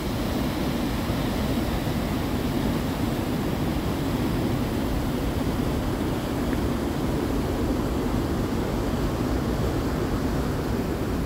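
Steady rushing of a river in flood pouring over a low dam spillway into whitewater, an even, unbroken noise that does not change.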